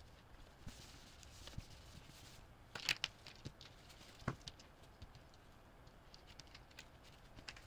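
Small plastic slider bars and coil springs dropped from a paper towel onto a work mat, clicking and clattering, with paper rustling. The loudest clicks come in a little cluster about three seconds in and once again a little past four seconds, then lighter ticks as the parts are laid out.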